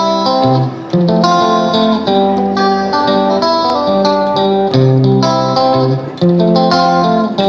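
Background music led by plucked guitar, playing a melody in short phrases.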